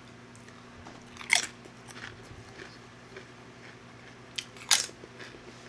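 Crisp tortilla chips bitten and chewed: two loud crunches, about a second in and near the end, with quieter crunching chews between.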